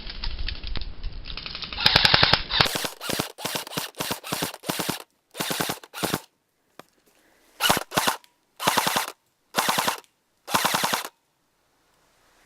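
About nine short bursts of rapid automatic fire, each lasting under a second, separated by dead silence, with a rattle of fire just before them.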